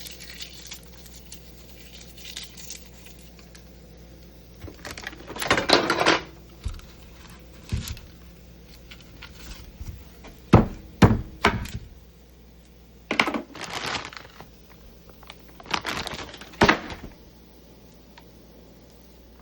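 Objects being handled in a small room: scattered sharp knocks and thuds in a few clusters, with some rustling and crinkling.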